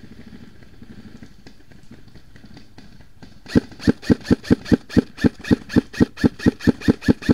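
Airsoft rifle firing a rapid string of about twenty shots, around five a second, starting about three and a half seconds in and cutting off sharply. Before that there is only a faint, steady background.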